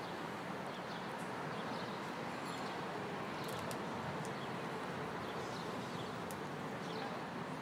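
Steady city street ambience: a constant hum of traffic, with a few faint bird chirps.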